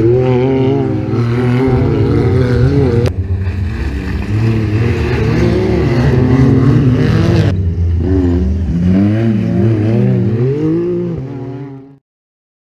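Side-by-side off-road buggy engines revving up and down as they race on a dirt track, the pitch rising and falling with each throttle change. The sound cuts off near the end.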